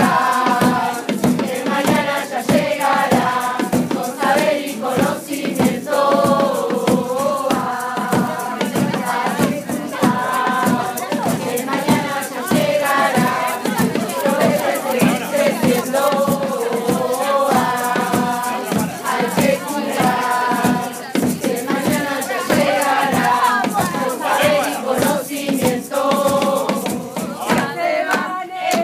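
A group of adults singing a song together over a steady rhythmic beat.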